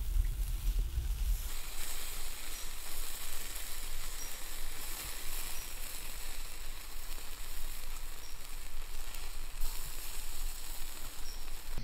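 Whole quail roasting over hot embers, their fat sizzling and hissing steadily where flames flare on the skin. From about a second and a half in, a thin steady high-pitched tone runs behind the sizzle.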